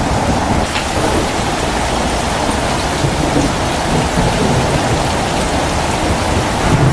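Heavy rain falling steadily, with low rumbles of thunder underneath.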